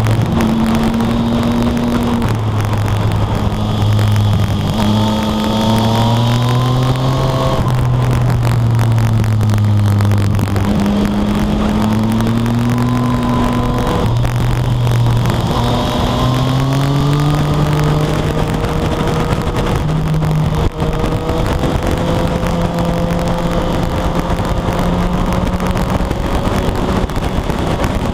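Yamaha FZ-09's inline-three engine under way, its note climbing twice under throttle and dropping back each time, then holding a steadier, slowly rising note. Wind rushes over the chest-mounted microphone.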